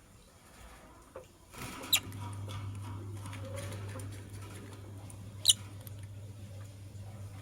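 Lovebirds in a cage: two short, sharp, high chirps about three and a half seconds apart, between light pattering and scratching of movement in the cage. A steady low hum starts about two seconds in.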